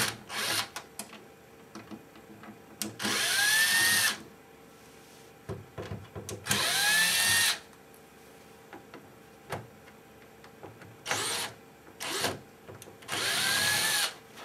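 Cordless drill backing out the screws of a TV's plastic back cover, run in five separate bursts: three of about a second and two short ones near the end. The motor's pitch rises and falls within each burst, with small clicks and taps between them.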